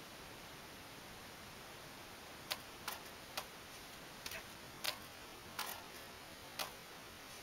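A katana cutting again and again through an upright bamboo pole: a quick series of about seven sharp cracks over some four seconds, starting about two and a half seconds in, with cut pieces of bamboo falling.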